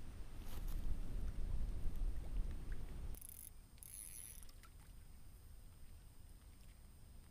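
Wind buffeting the microphone: a heavy low rumble that cuts off abruptly about three seconds in, leaving faint wind noise with two short high hisses.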